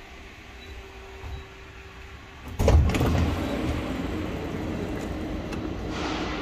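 Quiet, faintly humming interior of a parked train, then a thump about two and a half seconds in and the louder, steady rumble and hum of a station platform under a train-shed roof, with trains standing.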